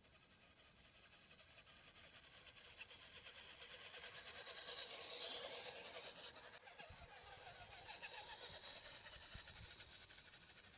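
HSP Pangolin 1/10-scale RC rock crawler driving past: a high motor and gear whine with tyre noise that grows louder as it approaches. It is loudest about halfway through, where the pitch sweeps down as it passes close, and then runs on more quietly.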